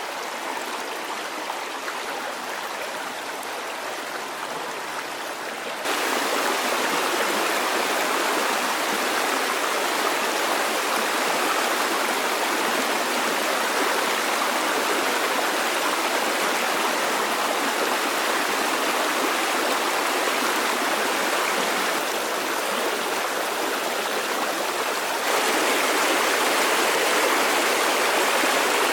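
Steady rush of flowing water, stepping abruptly louder about six seconds in and again near the end.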